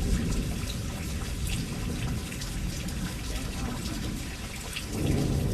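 Steady rain falling and splashing, with scattered drips standing out over the rush. A man's voice comes in near the end.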